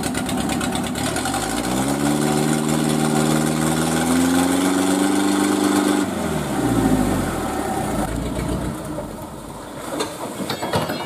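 Loaded dump truck's engine revving up hard in deep mud, holding high revs for a few seconds, then dropping back about six seconds in. After that comes a rougher, fading churn with a few sharp knocks near the end.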